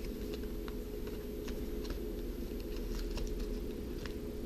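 A few faint, light clicks and taps from handling opened plastic RAM packaging and the memory sticks inside, over a steady low hum.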